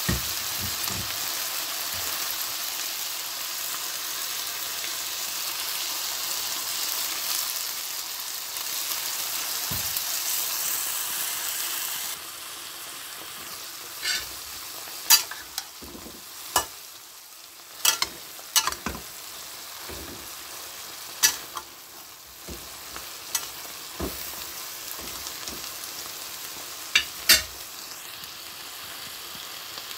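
Chicken and bell pepper strips sizzling in a wok as they are stir-fried. The sizzle gets quieter about twelve seconds in, and after that a dozen or so sharp knocks of a utensil against the pan come through as the mix is stirred.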